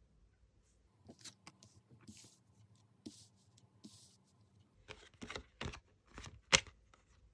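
Tarot cards being handled: papery swishes and slides, then a quick run of sharp card snaps and taps, the loudest about six and a half seconds in.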